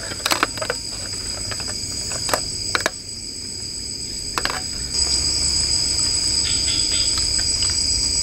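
A steady high-pitched chorus of night insects, holding two pitches, with a few short clicks and scrapes of spoons in a cooking pan.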